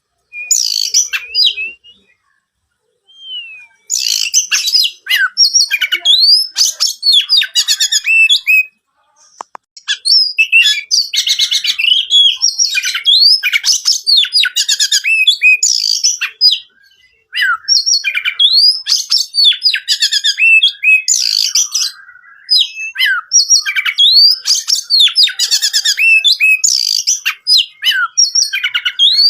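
Oriental magpie-robin (kacer) singing in long, rapid phrases of rising whistles and buzzy trills, broken by a few brief pauses.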